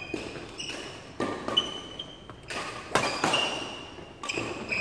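Badminton rally: three sharp racket hits on the shuttlecock, about one and a half seconds apart, each echoing in a large hall. Short high squeaks of court shoes on the floor come between the hits.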